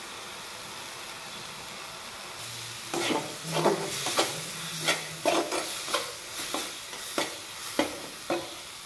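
A steel spoon scraping and clinking against a metal kadhai as spices are stirred into a frying onion-tomato masala, about a dozen strokes starting about three seconds in, over a faint steady sizzle.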